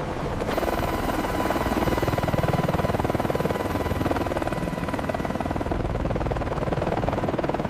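AH-1 Cobra attack helicopter running: fast, steady rotor chop with a turbine whine that comes in about half a second in.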